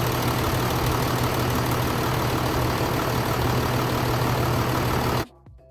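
Cummins ISB 6.7-litre inline-six diesel idling steadily with an even low hum. It cuts off suddenly about five seconds in, and faint music follows.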